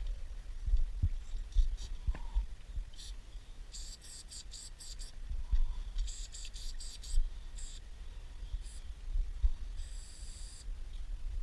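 Aerosol spray paint can hissing in about seven short bursts of different lengths as paint is sprayed onto a freight wagon's metal side, over a low rumble with soft thumps.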